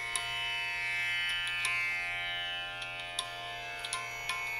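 Background instrumental music in an Indian style: a steady drone of held tones with short plucked notes here and there.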